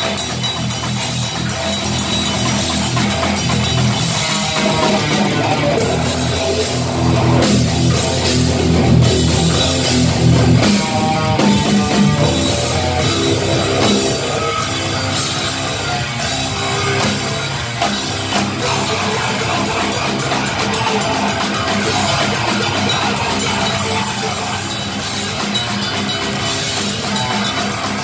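Hardcore band playing live: distorted electric guitar and bass over a drum kit, loud and unbroken.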